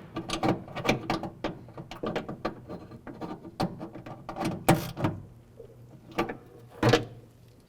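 Ratchet clicking as a door-handle mounting bolt is turned to check that it is tight, with a few louder metallic knocks about two-thirds of the way in and again near the end.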